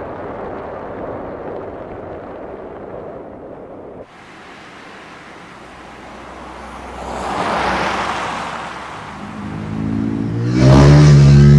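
A car on a road: steady road noise, then tyre noise swelling and fading as the car drives close past. About ten and a half seconds in, a loud, deep, pitched drone starts abruptly and becomes the loudest sound.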